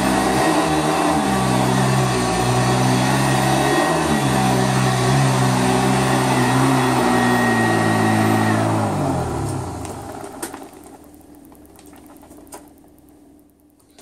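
1976 Eureka WideTrack upright vacuum cleaner running on high speed, its motor pitch shifting up and down as it is pushed back and forth over carpet. About eight and a half seconds in it is switched off and the motor winds down over about a second, followed by a few faint clicks.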